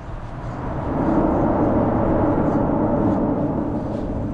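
A vehicle crossing the bridge overhead: road noise that builds about a second in and eases off near the end.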